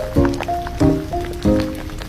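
Music with a steady beat, about three beats every two seconds, and a short-note melody over it.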